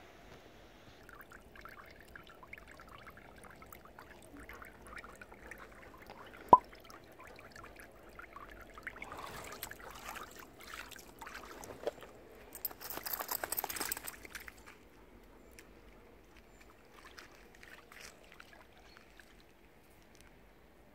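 Shallow lake water trickling and splashing around a wading Akita's legs, with a denser stretch of splashing a little past halfway. A single sharp click about six and a half seconds in is the loudest sound.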